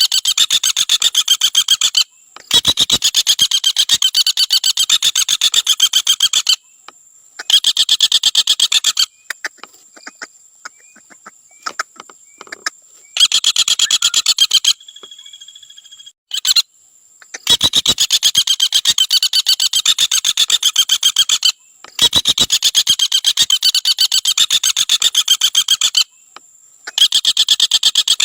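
Common flameback woodpecker (Dinopium javanense) giving its rapid, rasping rattle call ("trotol"), repeated in bursts of one to four seconds with short pauses between them. A faint steady high tone runs through some of the pauses.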